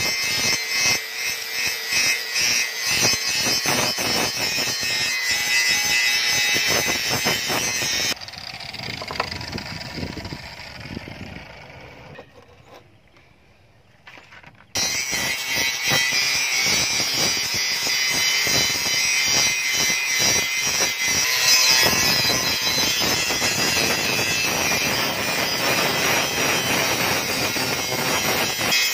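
Angle grinder with an abrasive disc grinding rust off an old steel billhook blade, a steady harsh grinding. About eight seconds in it drops away and fades to near quiet, then the grinding starts again sharply around fifteen seconds and runs on.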